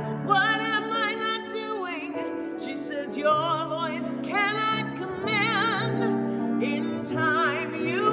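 A woman singing a solo with a strong vibrato on long held notes, accompanied by a grand piano.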